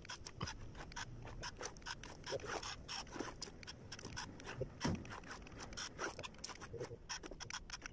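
Irregular clicking, crackling and scraping as a small cardboard remote-control forklift rolls over loose gravel and handles a cardboard container, with no steady motor tone.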